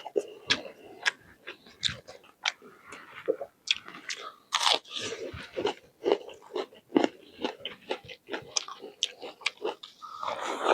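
A person biting and chewing food up close, with sharp crunches and wet mouth clicks coming irregularly, several a second.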